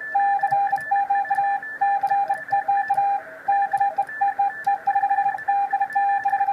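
Morse code on a ham radio: a steady beep keyed on and off in dots and dashes, with a fainter, higher-pitched second code signal keyed in a different pattern and light clicks throughout.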